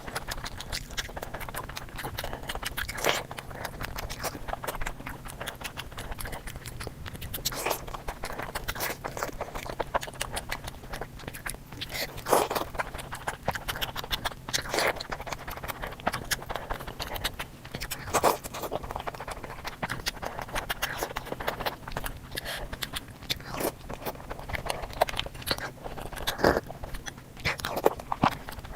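Close-miked eating of sweets: steady chewing with small crackles and wet mouth sounds, broken by a louder crisp bite every few seconds. A faint steady hum runs underneath.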